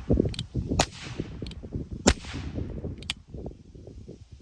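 Percussion caps popped on an empty Pietta Remington New Model Army cap-and-ball revolver to clear the nipples before loading. There are two sharp cracks about a second and a quarter apart, the second one loudest, each with a short hissing tail, and lighter clicks between them.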